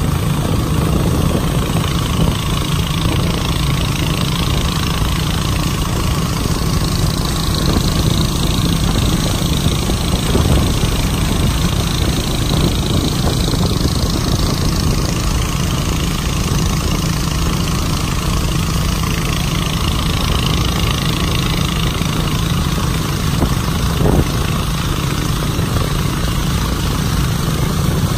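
Motorboat engine running steadily under way, with the wash of the boat's wake and a continuous hiss of water.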